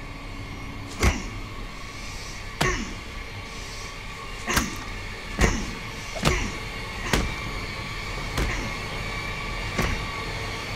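Heavy overhead blows from a hand-held weapon, struck about eight times at uneven intervals. Each is a sharp hit with a low tail that falls in pitch, over a steady droning hum.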